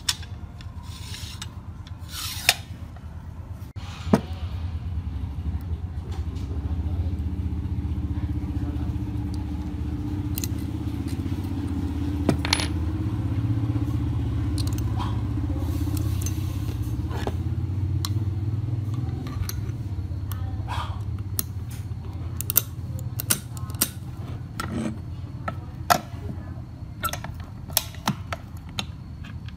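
Small metal and aluminium parts of a staple gun clicking, knocking and scraping as they are handled and fitted together. A low steady rumble builds under them through the middle and fades before the end.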